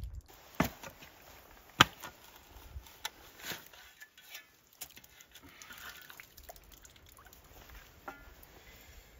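Steel shovel digging and scraping into wet, slushy ground mixed with sawdust and mud, with two sharp knocks in the first two seconds, then softer scrapes and ticks.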